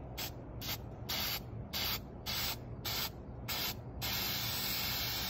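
Aerosol spray-paint can hissing in a series of short bursts, then one longer continuous spray from about four seconds in, laying black paint onto a metal skid plate.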